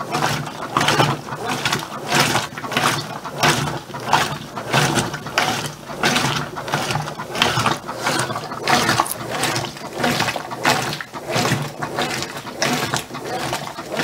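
Brastemp BWK15 15 kg top-load washing machine agitating. The motor hums, and the water and clothes slosh back and forth in even strokes about twice a second. The strokes are wide because there is less than a kilo of clothes in the drum, on an extra-low water level.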